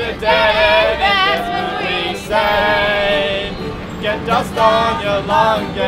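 A small group of men and women singing a song together, with a violin playing along.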